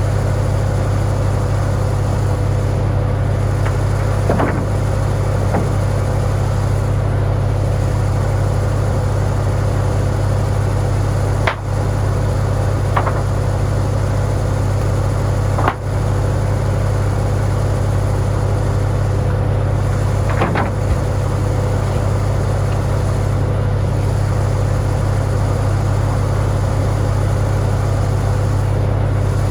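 Farmall tractor engine running at a steady speed, driving a sawmill edger, with a few sharp knocks scattered through.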